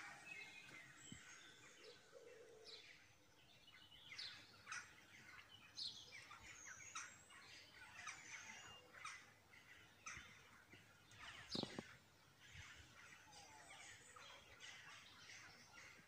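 Small birds twittering faintly: many short, overlapping high chirps from several birds. About two-thirds of the way through, one louder, harsher call or knock stands out briefly.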